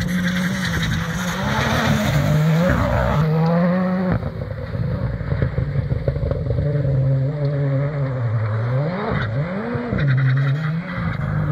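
Rally cars at full throttle on a gravel stage. The engine note climbs and drops repeatedly, and the sound changes abruptly about four seconds in. Near the end the pitch dips low and swoops back up several times.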